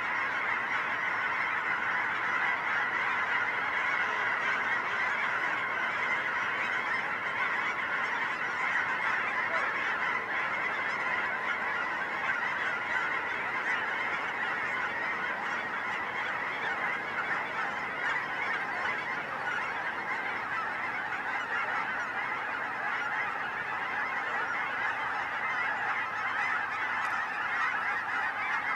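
A large flock of geese honking as they circle overhead: a dense, steady chorus of many overlapping calls with no break.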